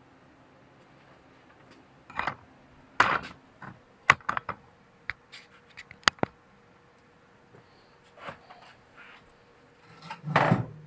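A few sharp clicks and knocks, then a louder rustle near the end, as of a person moving about and handling things close to the microphone.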